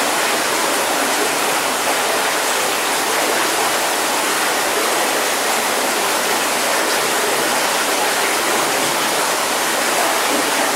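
Stream water rushing steadily over rocks, an even hiss with no changes.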